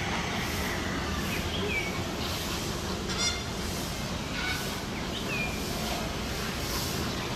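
Bird calls: a single short honking call about three seconds in and a few brief high chirps, over steady background noise.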